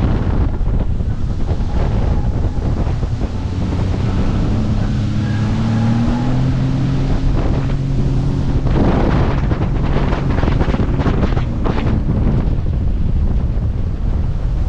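Jet ski engine running under way, its pitch rising a little about five seconds in, with heavy wind buffeting on the microphone and water rushing and splashing, strongest near the middle.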